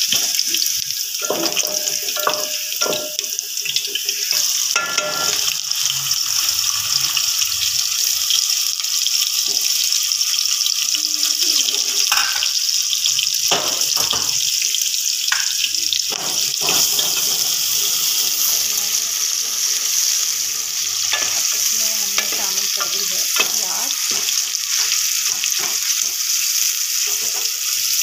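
Garlic, green chillies and sliced onion sizzling in hot oil in an aluminium pot: the baghar stage of aloo palak. A wooden spoon scrapes and knocks against the pot as it stirs, giving scattered clicks over the steady sizzle.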